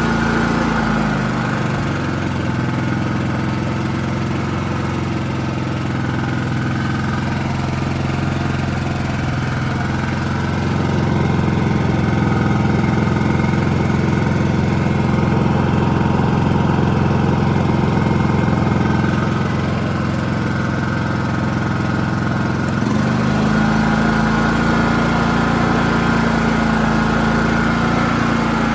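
WEN portable inverter generator's engine running steadily. Its note shifts about a second in and shifts back about 23 seconds in, and it runs a little louder in the middle stretch.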